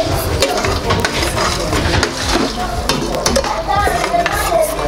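Metal ladle stirring tomato sauce in a metal cooking pot, clinking and scraping against the pot several times.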